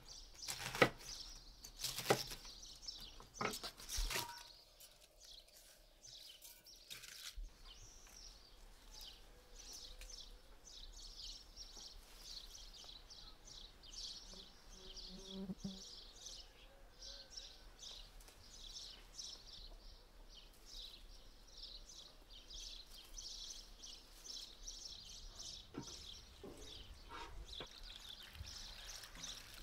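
Small birds chirping over and over, with three sharp knocks in the first few seconds.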